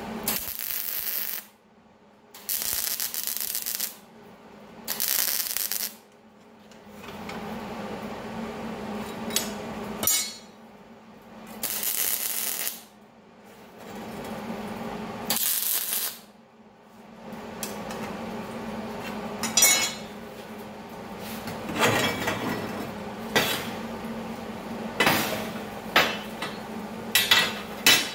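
MIG welder tacking the corners of 1-inch, 1/8-inch-wall steel square tubing: several spells of sizzling arc hiss, each a second or so long, in the first half. In the second half come sharp metal knocks and clanks as the steel tubing is handled on the steel bench. A steady low hum runs underneath.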